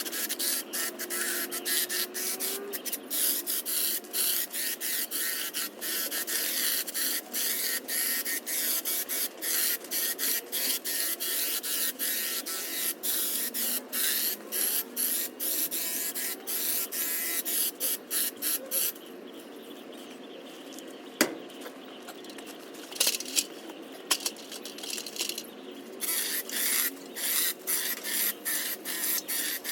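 Makita hedge trimmer running and cutting through foliage, a hissing, rapidly chopping buzz in repeated short bursts. It pauses for several seconds about two-thirds of the way through, with a few sharp snaps, then cuts again.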